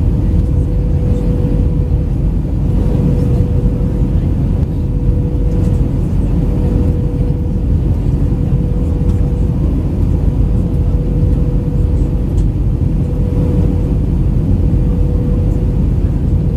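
Cabin noise inside an Airbus A319 airliner powered by CFM56 engines: a steady, deep rumble of engines and airflow with a constant mid-pitched hum running through it.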